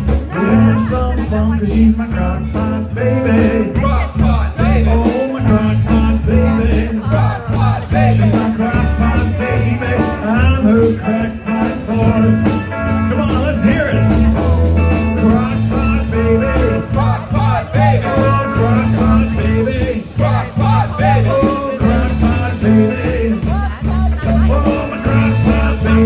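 Live blues-rock band playing loudly: two electric guitars over a drum kit, with a steady beat and a wavering lead line on top.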